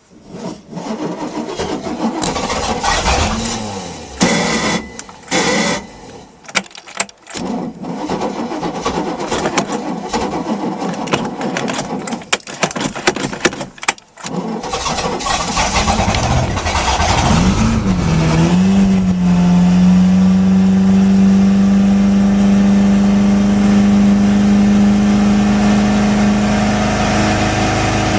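5.7-litre MerCruiser V8 marine engine being cranked by its starter on a jump-start, in several bursts with short pauses, for about fourteen seconds. It then catches, revs up and settles into a steady fast idle.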